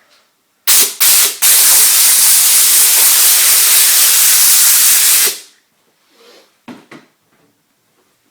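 Compressed-air blow gun hissing in two short blasts, then one long blast of about four seconds, blowing sanding dust off the primed hood.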